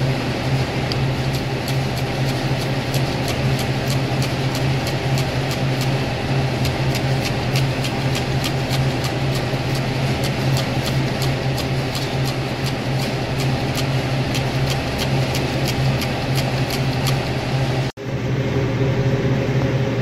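Hand trigger sprayer squirting leak-detector soap onto a thermostatic expansion valve's flare fittings to pinpoint a slow refrigerant leak. The trigger is pumped rapidly, about three or four squirts a second, and the spraying stops shortly before the end. A steady low machinery hum runs underneath.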